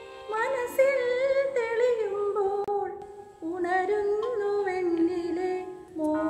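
A woman singing a slow melody into a microphone in two long phrases, the notes drawn out and wavering, with a short break about three seconds in.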